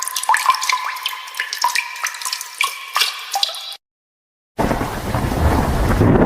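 Water-drip sound effect: a rapid run of pitched plinking drops, each a quick upward blip, that cuts off abruptly about three and a half seconds in. After a short silence, a steady rain-and-thunder rumble starts near the end.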